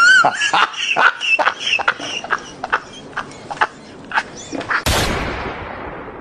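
A high wavering cry, then a run of sharp clip-clop knocks about three a second, then a loud whoosh that fades away.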